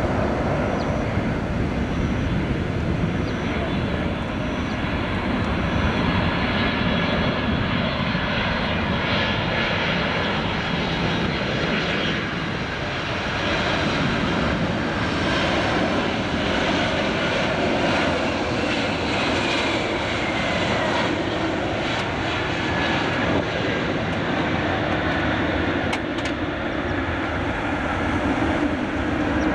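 Jet engines of a Boeing 747 airliner on low final approach and landing: a steady rushing roar, with a whine that falls in pitch just past the middle as the aircraft passes.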